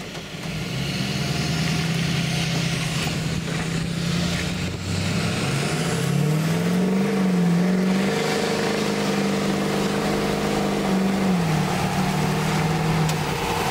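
LBZ Duramax 6.6-litre V8 turbodiesel in a 2007 Chevrolet 2500HD with a 5-inch straight-pipe exhaust, heard from inside the cab under hard acceleration. The exhaust note comes up about half a second in and climbs in pitch, dips briefly, holds, then drops near the end as the transmission shifts up.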